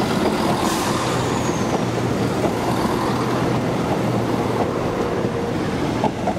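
CrossCountry Class 170 Turbostar diesel multiple unit running: a steady diesel engine hum over wheel-on-rail noise, with a brief high falling squeal about a second in.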